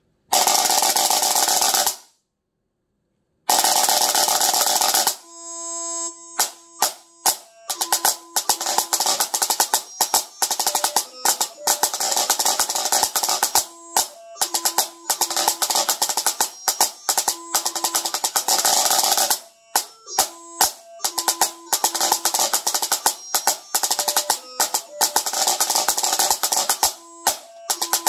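Pipe band snare drum played solo: two long rolls of about two seconds each with a short gap between them, then the drum setting for the march. This is a quick run of crisp strokes with regular accents and short rolls, and some strokes leave a brief ring from the tight head.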